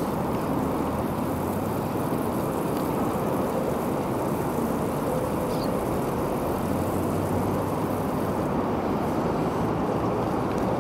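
Steady rushing of water spraying from a garden hose onto grass.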